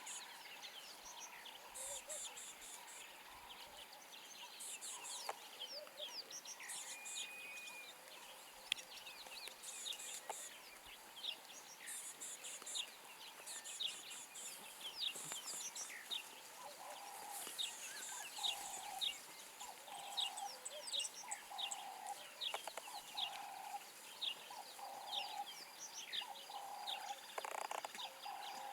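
Wild birds calling in the bush: many quick high chirps and buzzy trills, and from about halfway a lower call repeated roughly once a second.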